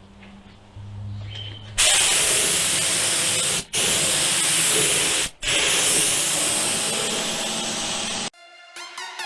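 Paint spray gun spraying primer: a loud steady hiss of compressed air and atomised paint in three passes, broken twice briefly as the trigger is let go, then cut off. Electronic music starts near the end.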